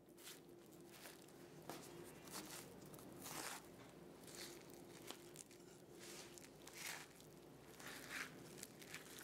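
Faint scraping of a spoon against the inside of a cooked spaghetti squash shell, pulling the flesh loose in strings, in short, separate strokes.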